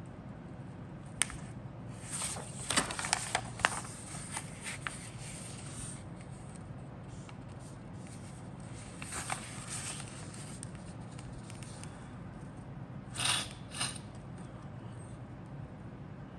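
A printed paper instruction sheet handled and turned over, crinkling and rustling in a few short spells, the busiest early on and a brief pair near the end, over a steady low hum.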